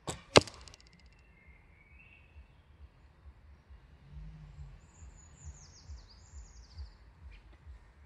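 A 40-lb Samick SHT recurve bow is shot: a sharp snap as the string is released, then about a third of a second later a louder, sharp smack as the arrow strikes the target boss. A few seconds later a bird sings a short run of high, descending chirps.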